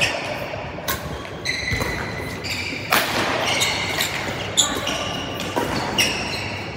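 Badminton rackets striking a shuttlecock back and forth in a doubles rally: sharp pinging hits roughly once a second, each ringing briefly and echoing around a large hall.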